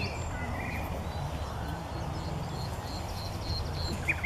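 Common nightingale singing: short whistled phrases with rising notes in the first second, then a quick run of repeated high notes about three seconds in, over a steady low rumble.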